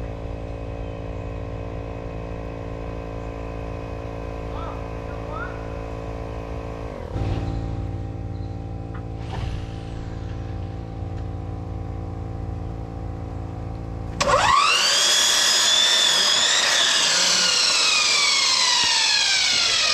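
A steady machine hum with several tones runs for about fourteen seconds. Then a power drill starts, louder, its pitch jumping up and then sinking slowly as it works under load, until it cuts off at the end.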